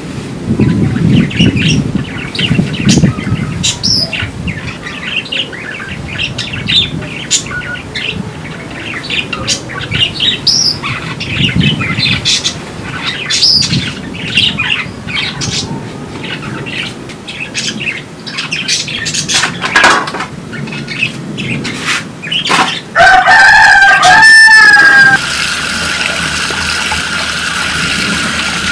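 Thin plastic bag rustling and crinkling in irregular bursts as it is handled. About 23 seconds in there is a loud whine for about two seconds as a tap is opened, then water runs steadily from the tap onto cut potatoes in a plastic colander.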